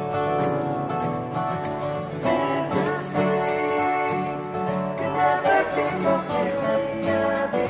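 Four acoustic guitars strummed together, playing chords in a steady rhythm.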